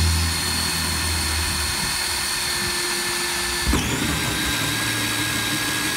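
Cordless drill running a hole saw into the high-density polyethylene wall of a cistern tank, a steady whir; a little past halfway its pitch dips briefly as the saw loads up, then it runs on steadily.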